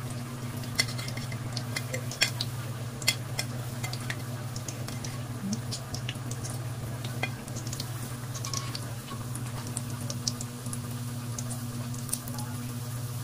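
Bread pastries deep-frying in hot oil in an aluminium wok: a steady sizzle with scattered crackles and pops, and metal tongs clicking against the pan and plate as pieces are lifted out.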